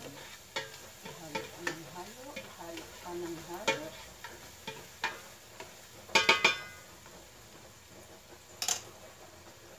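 A spoon stirring and scraping onions sautéing in an aluminium pot, with light sizzling and repeated clicks of the utensil on the pot. About six seconds in, a quick cluster of loud, ringing metal knocks sounds as the utensil strikes the pot, with one more knock near the end.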